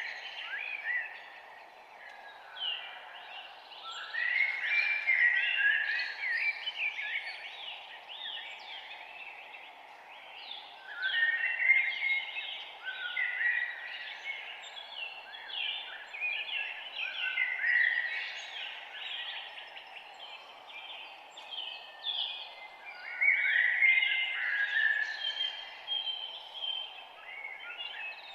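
Birds singing and chirping in busy bursts of quick notes and trills that swell and fade every few seconds, over a steady low background hiss.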